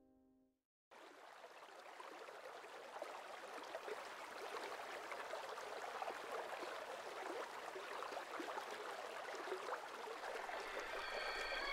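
River water lapping and splashing, a steady rushing wash that comes in suddenly about a second in and slowly grows louder.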